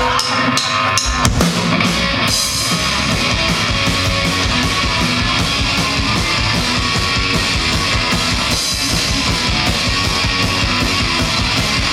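Live rock band playing: a few separate drum hits at first, then about two seconds in the full band comes in, electric guitar, bass guitar and drum kit with cymbals playing together steadily.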